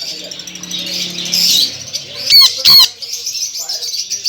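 Sun conure giving two loud, shrill screeches about two and a half seconds in, over a steady chatter of many birds chirping.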